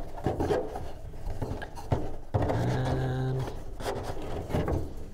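Rope rubbing and scraping against wood as a knot in a varnished deck rope is worked by hand along toward the kayak's gunwale, with a few light knocks. A brief low hum sounds near the middle.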